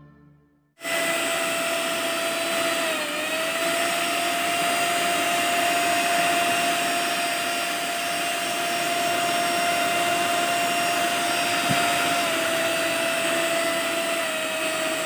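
Orient 750 W mixer grinder's motor switched on just under a second in, running at full speed with a steady high whine. Its pitch dips briefly about three seconds in, and it starts to wind down at the very end.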